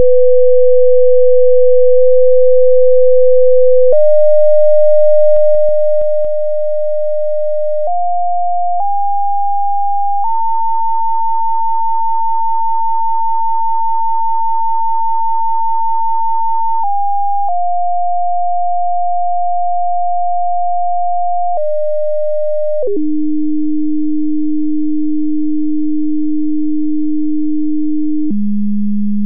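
A computer-generated test tone from the PhET Sound simulation's speaker. It starts at 500 Hz and is stepped up in jumps to about 900 Hz, held there, then stepped down to about 300 Hz and finally about 200 Hz near the end. The tone gets a little quieter about six seconds in as the amplitude is turned down.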